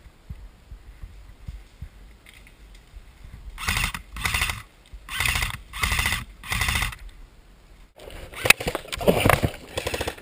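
Five loud, evenly spaced heavy breaths from a player moving off on foot, about one every two-thirds of a second. After them comes a stretch of sharp clicks and rustling.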